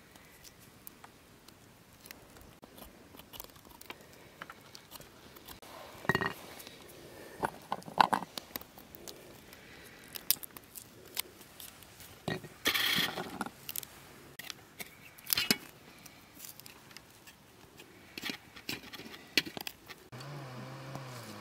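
Cooking and food-preparation handling sounds: scattered light clicks and knocks of utensils and dishes, with a few short scrapes, the longest about thirteen seconds in.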